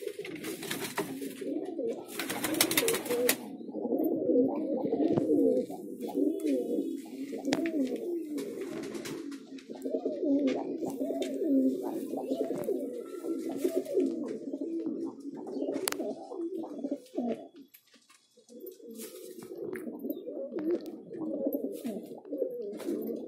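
Many domestic pigeons cooing at once in a breeding loft, with overlapping warbling calls and a short lull about three-quarters of the way through. Near the start there are two brief rushes of wing-flapping.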